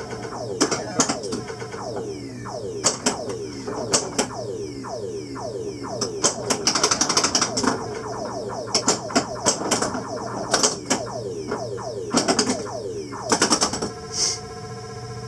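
Williams Black Knight pinball machine in play: rapid sharp clacks from the flippers, bumpers and solenoids mixed with many short falling-pitch electronic sound effects. Near the end a steady electronic tone chord sounds.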